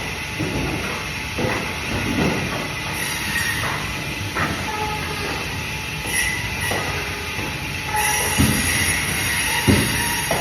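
Band saw running and cutting through fish: a steady whine with a high tone, broken by irregular knocks.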